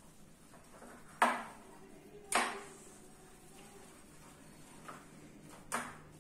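Spoon knocking against a bowl while stirring pancake batter: three sharp clinks with a short ring, about a second in, again a second later, and near the end.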